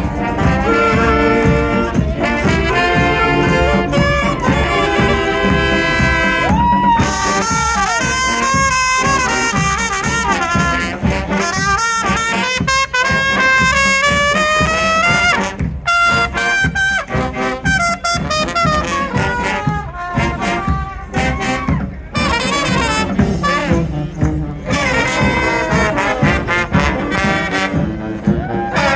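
Live brass band playing: horns carry the tune over a steady drum beat.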